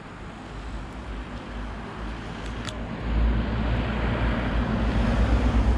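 A car driving up the road and passing close by, its tyre and engine noise growing louder about halfway through, with a strong low rumble.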